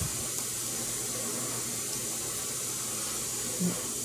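Steady background hiss of room tone, with a short low hum near the end; no clear clicks from the plastic figure being handled stand out.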